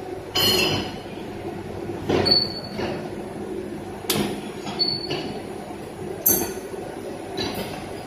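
Factory machinery of a PVC profile printing and UV-coating line running with a steady hum, broken by repeated loud metallic clanks about every two seconds, a few with a short high ring.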